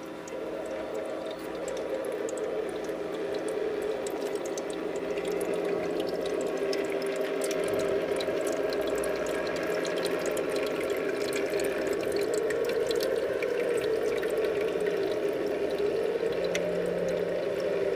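Magic Chef tabletop ice maker running water into the tray under its freezing prongs: a steady trickle and splash that starts about half a second in and grows louder over the first few seconds, with small clicks and a faint steady low hum under it.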